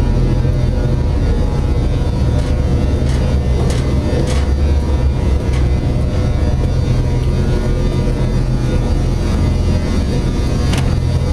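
Steady low drone of industrial plant machinery, with a few light clicks, the sharpest near the end.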